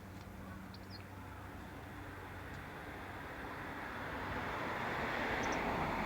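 A few short, high bird chirps over a rushing background noise that swells louder through the second half.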